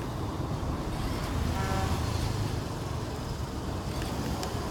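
Steady street traffic rumble, with a short pitched beep about one and a half seconds in.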